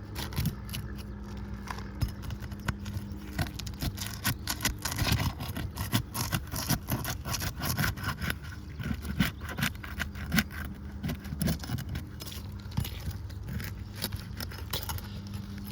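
A roof snake shingle-removal bar being worked under asphalt shingles: irregular scraping, clicking and knocking as the brittle, stuck-down shingles tear instead of releasing cleanly.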